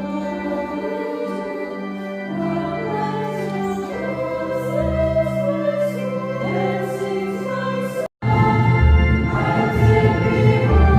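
Choir singing a church hymn with instrumental accompaniment. The sound cuts out for an instant about eight seconds in and returns louder, with deep bass notes.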